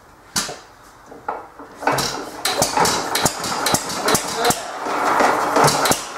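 1914 Economy Model D single-cylinder hit-and-miss gasoline engine being started, its first start: a few separate knocks as the flywheel is turned by hand, then about two seconds in it catches and runs, a fast, growing clatter of metallic knocks.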